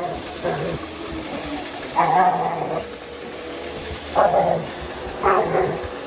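A dog barking in four short, gruff bursts over a faint steady hum.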